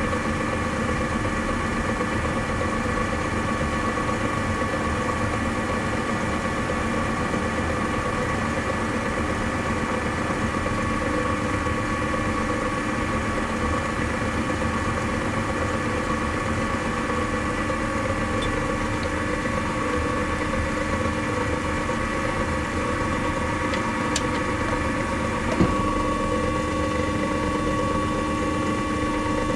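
Electric motor of a workshop machine tool running steadily with a constant hum. A single sharp knock comes near the end, after which the hum changes slightly.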